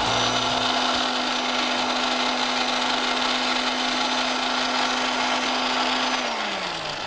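Electric mixer grinder running steadily with a small steel jar of dry-roasted whole spices being ground to powder, its motor humming under a dense grinding rattle. About six seconds in it is switched off and the motor winds down, its pitch falling.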